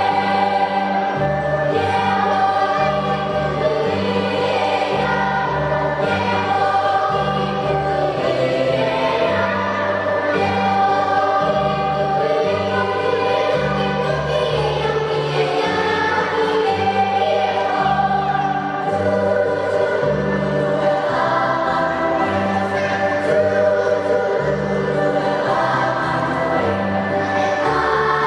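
Children's choir singing, over a low bass accompaniment that changes note in a steady pulse about once a second.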